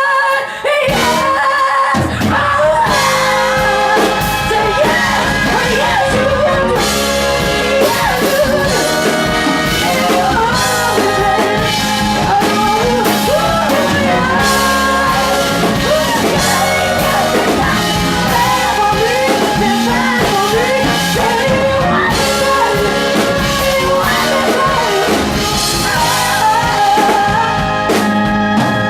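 Live rock-and-soul band playing loudly with drums and a singer's wavering vocal line over the full band, without let-up.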